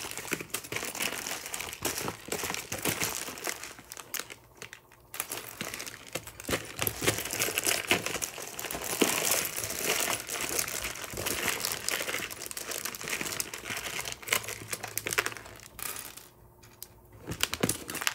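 Hands rummaging through and sorting small 3D-printed plastic crown parts: continuous crinkling and rustling with many light clicks of pieces knocking together, easing off briefly twice.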